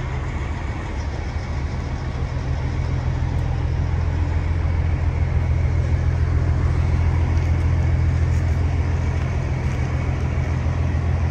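Diesel engine of a Kenworth W900 semi truck idling: a steady low hum that grows a little louder a few seconds in.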